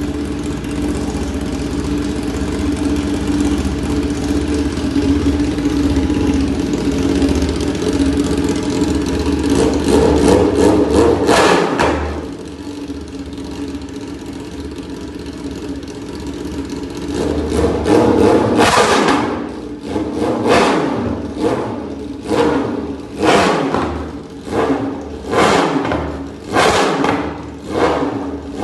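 BMW S1000RR inline-four engine, run without its Akrapovič exhaust, idling, then revved up and held for about two seconds before dropping back to idle. It is revved again after about six seconds, then blipped in a quick series of short revs, about one a second.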